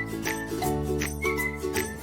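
Background music: a light, jingly tune with a bass line and a steady beat of about four strokes a second.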